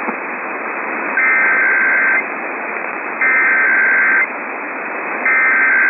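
Emergency Alert System SAME header received over the radio: three bursts of shrill, buzzy digital data tones, each about a second long with about a second between them, over steady radio hiss.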